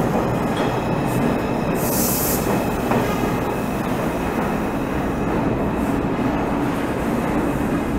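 An R142 subway train running slowly along the rails in the underground station, with a steady low rumble of wheels on track. A short hiss comes about two seconds in.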